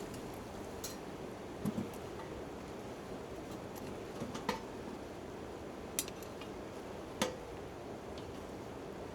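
Campfire and light rain on a tarp: a steady hiss with a handful of scattered sharp clicks and clinks, a couple of which ring briefly.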